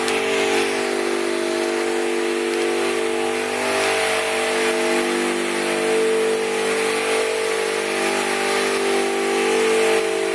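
A steady mechanical drone: machinery running continuously with several held low tones over a hiss, with no change in speed.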